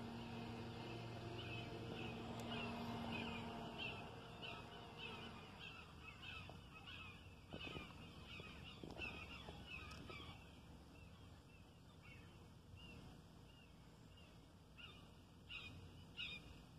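A bird calling repeatedly in short chirps, about two a second, thinning out after about ten seconds. Underneath is a faint, steady low hum that stops about five seconds in.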